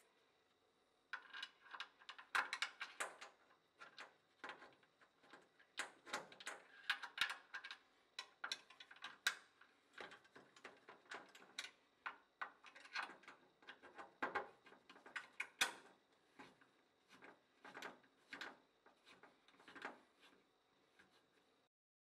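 Gloved hands working cables and fittings at the underside of an electrical junction box: irregular clicks, taps and rustles, starting about a second in and going on in uneven bursts.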